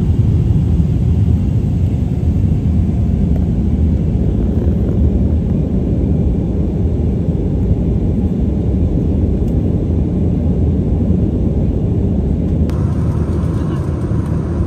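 Steady low rumble of cabin noise inside an Airbus A320-232 in flight: airflow and its two IAE V2500 turbofans. A little more hiss comes in near the end.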